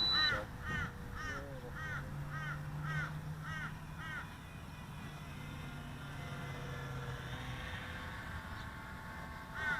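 A crow cawing in a quick series, about two caws a second, stopping about four seconds in. A low steady hum runs underneath for a few seconds.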